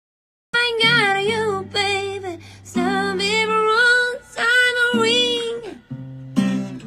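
A woman singing a melody with vibrato, in phrases with short breaks, over steady held low accompaniment notes. It cuts in abruptly from silence about half a second in.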